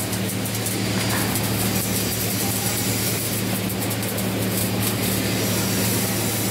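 Flux-cored arc welding: the arc's steady crackling hiss as a bead is run, over a steady low hum.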